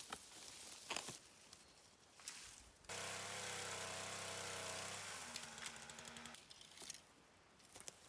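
Cut mimosa branches rustling and scraping as they are dragged over brush. About three seconds in, a pole chainsaw comes in running steadily, drops lower a couple of seconds later and stops about six seconds in.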